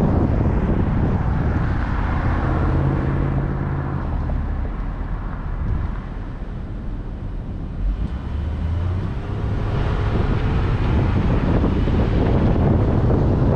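Wind rushing over the microphone with road and engine noise from a moving vehicle. It eases in the middle and builds again toward the end as the vehicle picks up speed.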